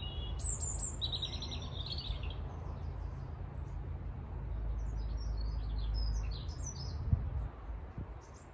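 Small garden birds chirping and singing in short high phrases over a steady low rumble, with one brief knock about seven seconds in.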